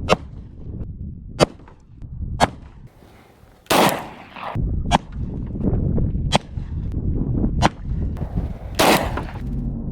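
Glock 20 Gen 4 pistol firing 10mm Auto hollow points in a string of about eight sharp shots, roughly one every second, two of them (near the middle and near the end) broader and longer than the rest. A low rumble of wind runs underneath.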